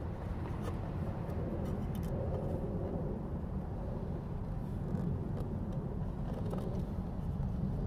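Steady low outdoor rumble with a few faint light clicks, as the mirror glass and housing are handled.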